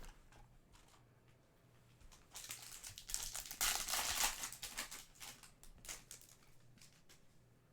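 Trading-card packaging crinkling and rustling under handling, with a louder burst of crackling and sharp clicks starting about two seconds in and lasting a few seconds.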